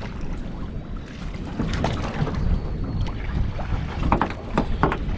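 Wind buffeting the microphone and water slapping against a small boat's hull, with a few light clicks and knocks.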